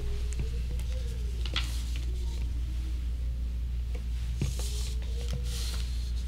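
Steady low electrical hum through the sound system during a silence at the pulpit, with a few soft clicks and brief paper rustles as notes are handled, and a faint wavering tone coming and going.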